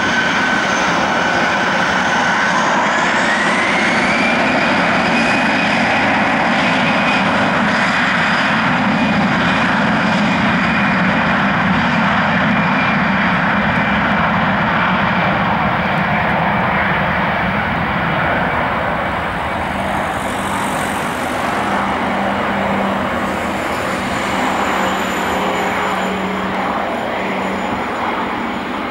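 Airbus A320-214's twin CFM56-5B turbofan engines on the take-off roll. The engine whine rises in pitch about three seconds in as the engines spool up to take-off thrust, then holds steady as a loud jet roar that slowly fades as the aircraft moves away down the runway.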